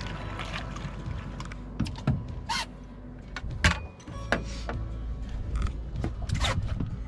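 A series of sharp clicks and knocks from a landing net and a lip-grip fish gripper being handled on a boat deck as a caught catfish is lifted aboard and clamped.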